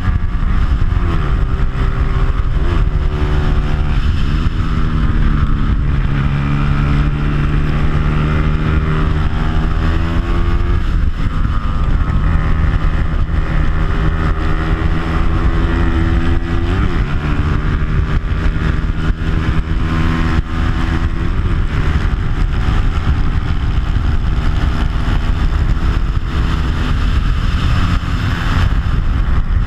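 Bajaj Pulsar 200 single-cylinder four-stroke race bike engine, stock except for an aftermarket exhaust, at racing speed. Its note climbs and drops again and again through gear changes, over a constant rush of wind on the microphone.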